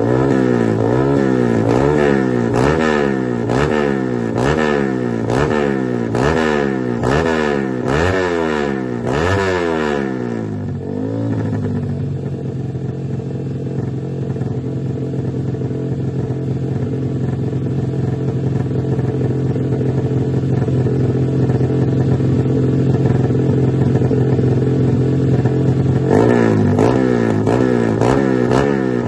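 Sport motorcycle engine heard through a BSS aftermarket slip-on exhaust, revved in quick repeated throttle blips at a little over one a second. About ten seconds in it settles to a steady engine note, and the quick blips start again near the end.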